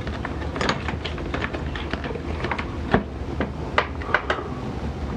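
Bikehand YC-100BH repair stand's cam-lock clamp being fitted onto a bicycle seat post: scattered sharp clicks and knocks of the clamp being handled and closed, the loudest about three seconds in and a quick run of three near the four-second mark.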